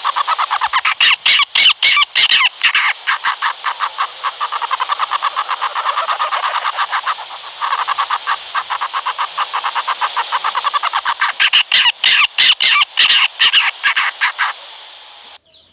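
Owl giving a rapid chattering call: fast runs of short, sharp notes, about ten a second, in bursts with a brief pause partway through, cutting off suddenly near the end.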